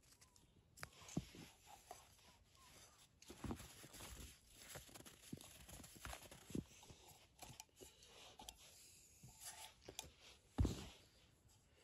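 Quiet rustling and scattered small knocks, like gear being handled, with one louder thump near the end.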